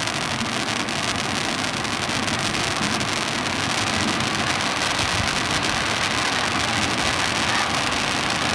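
Super Etna firework fountain burning with a steady rushing hiss, dense with fine crackling from its silver sparks.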